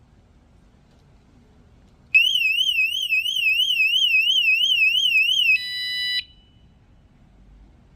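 Motorcycle anti-theft alarm siren sounding: a loud, high warbling tone that swings up and down about three and a half times a second for about three seconds. It then changes to a short steady beep and cuts off.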